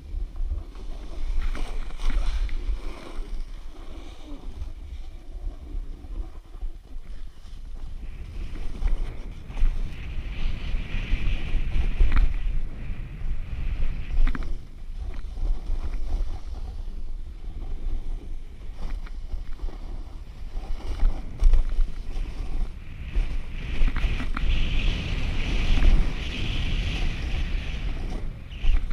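Wind buffeting a GoPro microphone as a snowboard rides down a groomed run, with the board's edge hissing and scraping over the snow. The scraping grows stronger about ten seconds in and again near the end.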